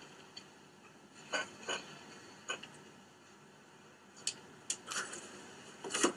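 A cat's claws scratching and tapping on wooden ceiling joists as it climbs up from the top of a door: a handful of faint, short scrapes and taps, spread out with quiet between them.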